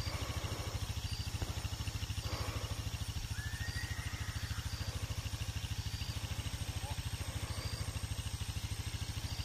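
An engine idling steadily with a fast, even pulse of several beats a second. A few faint bird chirps come over it.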